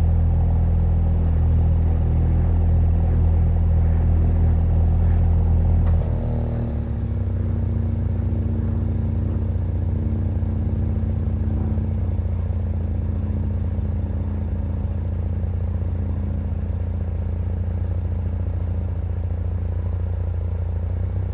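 2021 Audi S4's turbocharged 3.0-litre V6 idling steadily through its stock quad-tip exhaust. About six seconds in there is a short click and the note drops to a quieter, softer idle, typical of the active exhaust valves closing.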